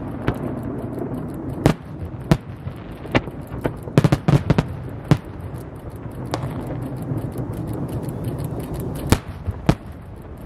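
Aerial fireworks shells bursting in a series of sharp bangs at irregular intervals, with a quick cluster of bangs around four seconds in and two more near the end, over a steady low rumble.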